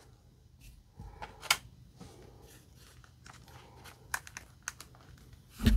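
Handling sounds of a plastic 1/6 scale action figure as its head is pushed onto the neck ball joint: scattered light clicks and rubbing, with a louder bump near the end.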